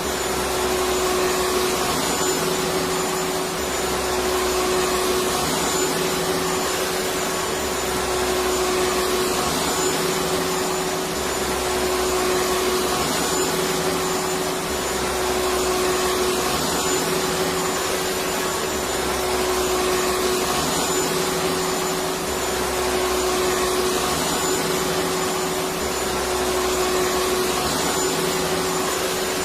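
Electric vacuum cleaner running steadily: a constant rushing motor noise with a steady hum and a faint high whine, and a low rumble that swells and fades every three to four seconds.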